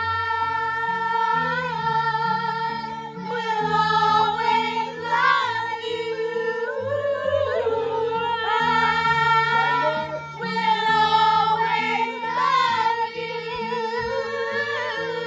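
A group of women and girls singing together along with backing music whose held low notes change every half second or so.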